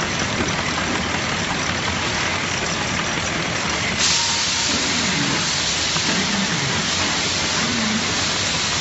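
Steady machinery noise with a strong hiss from a factory production line. About four seconds in, the hiss steps up suddenly and stays louder.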